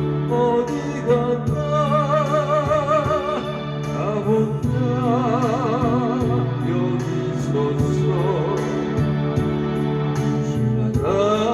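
Electronic keyboard playing a slow song over a steady drum-machine beat and held bass notes, with a melody line carrying a strong vibrato.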